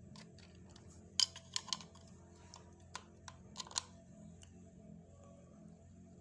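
A screwdriver working at the screws and plastic cover of a wall socket, making a handful of sharp clicks clustered between about one and four seconds in.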